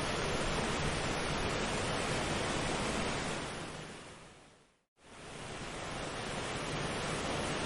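Steady rushing-water ambience from a nature-sound track. It fades out to silence about five seconds in and fades straight back up.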